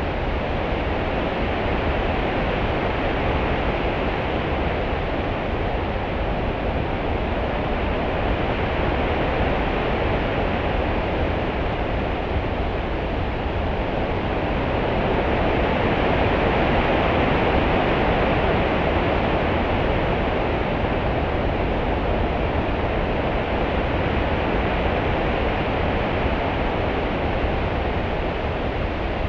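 Open-sea ambience: a continuous wash of rolling swell and lapping ripples, swelling slowly to its fullest about halfway through and easing back.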